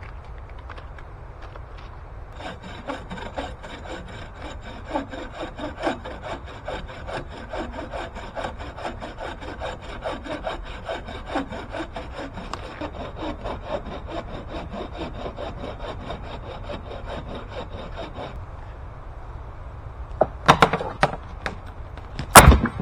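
Hand saw cutting into a standing hardwood tree in quick, even strokes for about sixteen seconds, then stopping. A few seconds later come sharp cracks of the trunk giving way, and near the end the tree crashes to the ground, the loudest sound here, breaking up as it lands.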